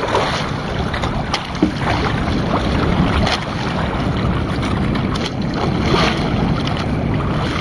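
Wind buffeting the microphone and sea water slapping against the hull of a small outrigger boat, a steady rushing noise with a few faint knocks.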